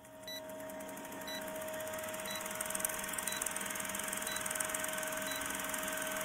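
Old film-projector countdown sound effect: a steady projector whir with fast clatter and hiss, and a short high beep once a second, six times.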